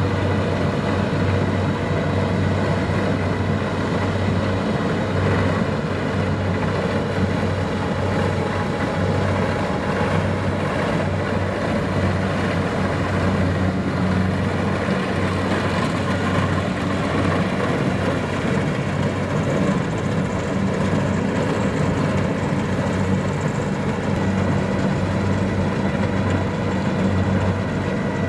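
Kubota DC-70 Plus combine harvester running steadily: an even, low engine drone with constant mechanical noise over it.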